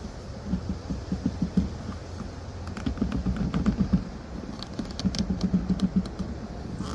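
PVC ball valve being screwed by hand onto a threaded plastic coupling in a plastic bin wall: three spells of quick clicking and rubbing as the plastic threads turn.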